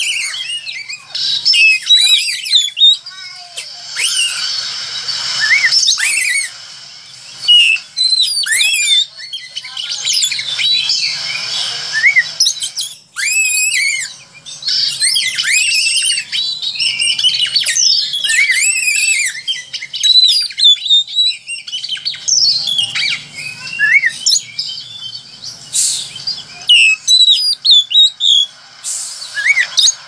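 Oriental magpie-robin in full song: a fast, varied stream of whistled and chattering notes sweeping up and down in pitch, with a short break about thirteen seconds in. It is the rapid twittering 'ngeriwik' style of song.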